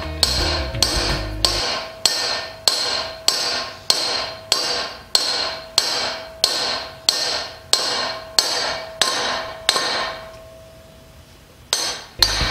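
Steady hammer blows on an old bearing race used as a driver, seating a new wheel bearing race into a semi truck steer-axle hub. The strikes come about two a second, each with a metallic ring. After a pause of about two seconds, two more blows land near the end.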